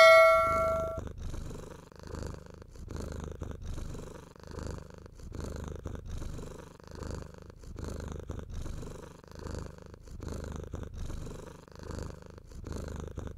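A cat purring steadily, swelling and fading with each breath about once a second. A bell-like chime fades out in the first second.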